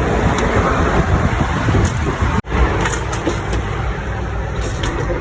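Steady low rumble of vehicle road noise with no speech, broken by a brief sharp dropout about two and a half seconds in.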